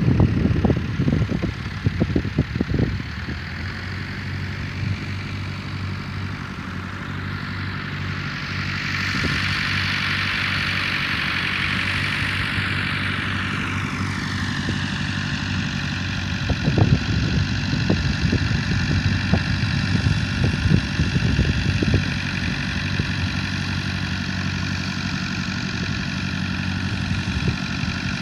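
Tractor engine running steadily, its pitch rising and then falling away partway through. Gusts of wind buffet the microphone near the start and again in the second half.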